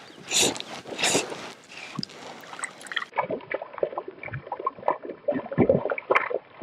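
A hooked speckled (brook) trout splashing and thrashing at the surface beside a kayak: a run of short, irregular splashes that grows busiest near the end. Two brief rasping strokes come first, near the start.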